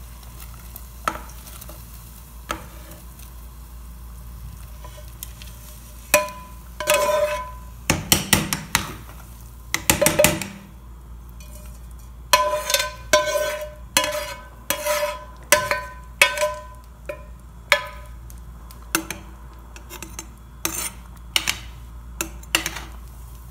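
A metal ladle scraping and knocking rice out of a pan into a pressure cooker of boiling water, with sharp ringing metal clinks. The clinks come sparsely at first, then in a run of about two a second through the second half.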